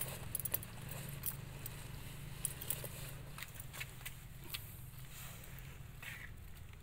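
Irregular light crackles and clicks of dry leaf litter and food as a macaque walks, forages and eats, over a steady low hum.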